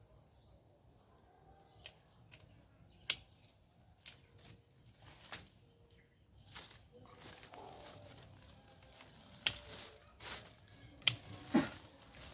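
Hand pruning shears snipping ficus branches: a series of sharp, separate clicks, about ten in all, coming faster in the second half. Leafy branches rustle as they are pulled and cut.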